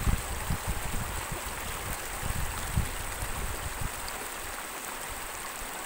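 Floodwater running steadily in a continuous rushing hiss, with scattered low thumps during the first three seconds that then fade out.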